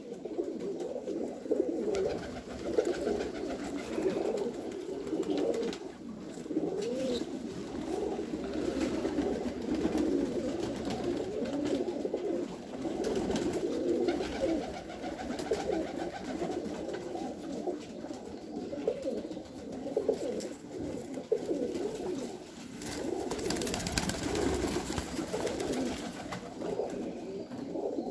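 Several Pakistani high flyer pigeons cooing, their low, warbling coos overlapping without a break.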